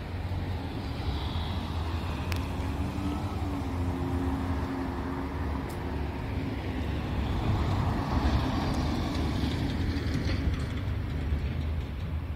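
Street traffic: a vehicle passing on the road, swelling to its loudest about eight seconds in and fading, over a steady low rumble.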